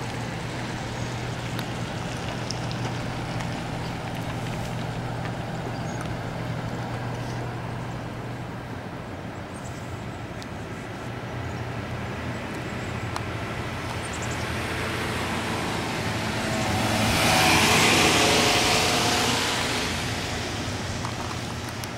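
Road traffic: a steady low hum, with a car driving past that swells to its loudest about three-quarters of the way through and then fades away.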